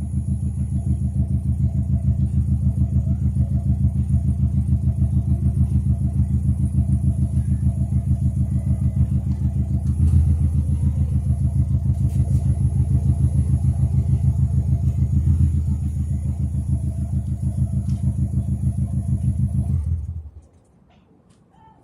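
Subaru Legacy BH5's flat-four engine idling through a Kakimoto Hyper Fullmega N1+ Single muffler with its silencer insert removed: a loud, steady, pulsing exhaust note. Near the end the engine is switched off and the sound stops suddenly.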